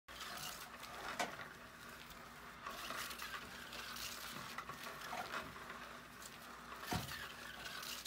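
Faint scuffling and rustling of a cat leaping and pawing at a feather wand toy on a concrete floor, with two sharp knocks, one about a second in and one near the end.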